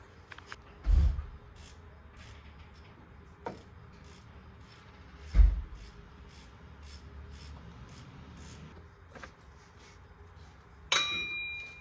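Hand tools working on an engine's alternator bolts: scattered clicks and knocks, two dull thumps, and near the end a sharp metallic clank that rings briefly.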